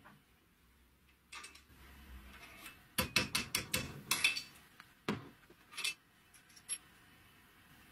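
Small metal parts being handled at a steel bench vise: a quick run of sharp clicks and clinks about three seconds in, then a few single taps.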